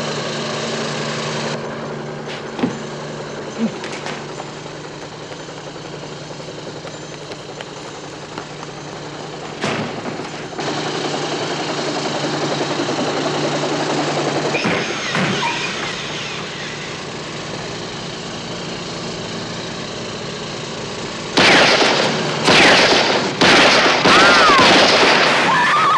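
A rifle fired in several long, loud bursts of automatic fire with short breaks between them, starting about five seconds before the end. Before the shooting there is a steady low hum with a few single knocks.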